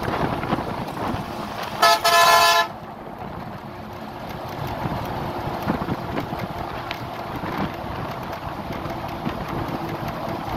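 A vehicle horn honks once about two seconds in, a short double blast lasting under a second, over steady road and wind noise from a moving vehicle.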